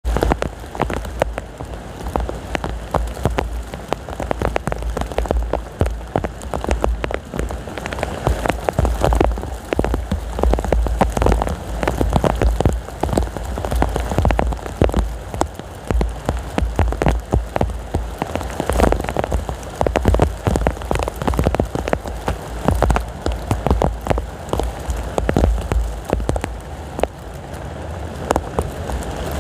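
Heavy rain falling steadily, with a dense patter of individual drops striking close by, over a low, gusting rumble of strong wind.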